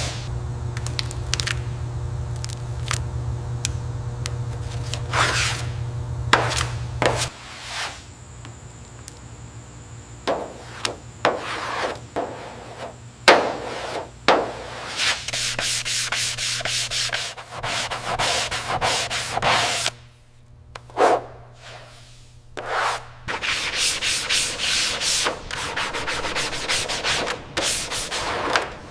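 Repeated abrasive rubbing and scraping strokes, over a steady low hum that is strongest for the first seven seconds and stops about 23 seconds in.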